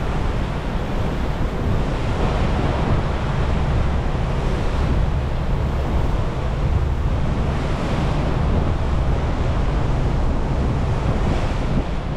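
Steady rush of water along the hull of the Pershing GTX 116 under way, with wind buffeting the microphone.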